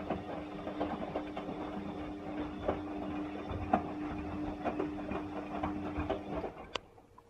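Bosch WAE 20165 washing machine running: a steady motor hum with irregular rattling and ticking. It stops about six and a half seconds in and is followed by a sharp click.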